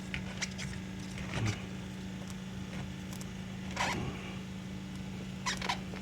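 Short scratchy rustles, about five of them, as a rubbery adhesive-backed spoiler lip is handled and pressed onto a car's plastic front bumper, over a steady low hum.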